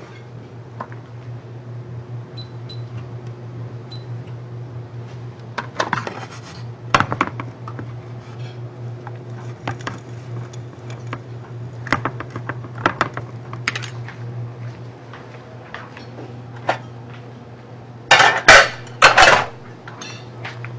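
A metal utensil clinking and scraping against a frying pan as food is stirred, in scattered short knocks over a steady low hum. A louder clatter of dishes comes near the end.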